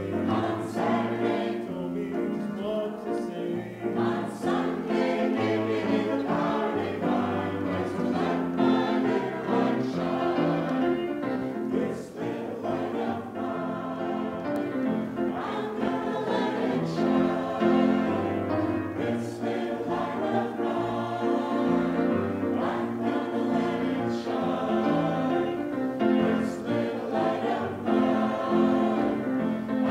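Church choir of men's and women's voices singing together, led by a director.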